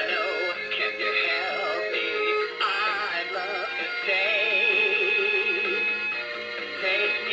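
Singing animatronic alligator toy playing its song: a synthetic-sounding male singing voice with wide vibrato over a backing tune.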